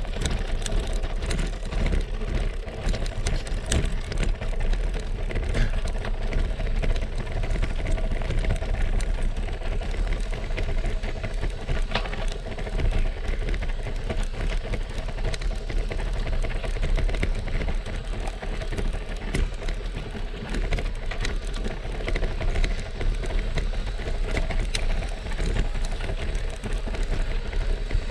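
Road bike riding up a cobblestone climb: its tyres and frame rattle over the cobbles in a dense, irregular clatter, over a low rumble.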